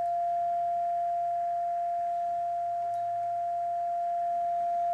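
Steady pure test tone from a function generator, played through an LM386 amplifier module into a small speaker. One unbroken whistle-like note: the amplifier is passing the signal cleanly.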